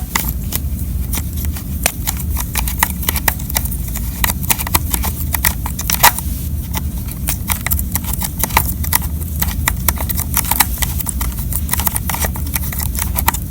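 Office letter opener used as a screwdriver on an Intel NUC's Phillips screws. Many irregular small clicks and scrapes come as the blade tip catches and turns in the screw heads, over a low handling rumble.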